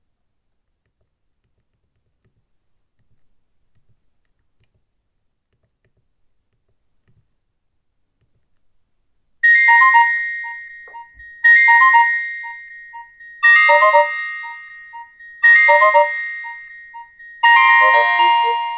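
A few faint clicks, then about halfway through a Nokia 5310 feature phone starts playing one of its default ringtones: a bright, chiming melodic phrase repeated about every two seconds, each phrase striking loudly and fading away.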